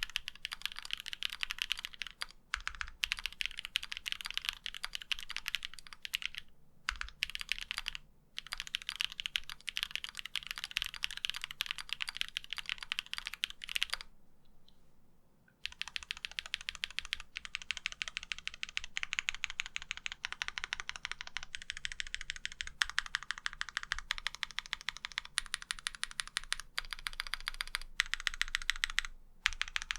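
Fast typing on a mechanical keyboard fitted with Domikey Cherry-profile double-shot ABS keycaps: a dense run of key clacks, broken by a few short gaps and a pause of about a second and a half halfway through.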